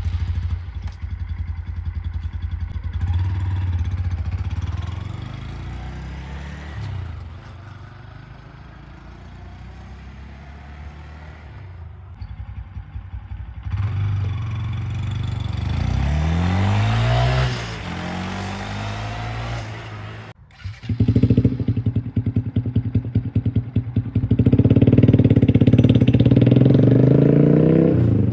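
Honda Grom's small single-cylinder motorcycle engine idling and being revved through its factory exhaust, the pitch sweeping up and back down a few times. After a cut about twenty seconds in, it runs through the aftermarket iStunt full-system exhaust, clearly louder, revving and then held at higher revs near the end.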